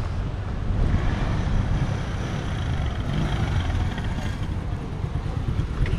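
Small motor scooter engine running close by, a steady low rumble.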